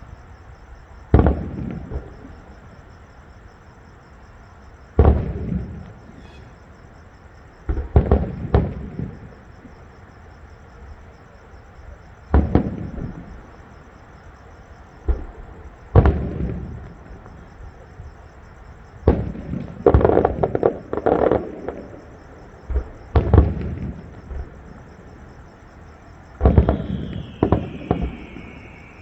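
Fireworks shells bursting overhead: loud booms every few seconds, each trailing off, with a quick run of bursts about two-thirds of the way in. Near the end a descending whistle sounds among the bursts.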